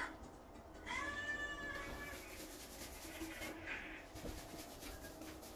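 A cat meowing: one drawn-out meow about a second in, lasting about a second, with its pitch rising slightly and then falling.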